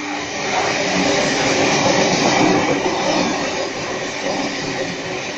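Sydney Trains double-deck electric suburban train running past close by on the station track, its wheels rolling on the rails. It grows louder to a peak about two to three seconds in, then slowly eases.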